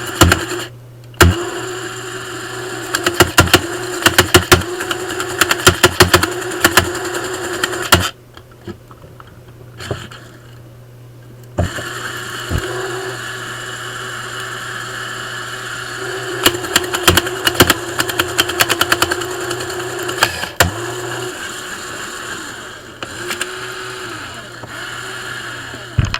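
Lego wood chipper, its single motor directly driving a three-bladed impeller, running with a steady whine while it chips wooden sticks in clusters of rapid sharp cracks. The motor stops briefly about a second in and again for a few seconds about eight seconds in, then runs on.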